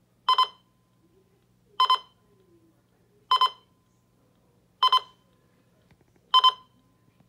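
ROCAM projection digital alarm clock's alarm going off: five electronic double beeps, evenly spaced about one and a half seconds apart.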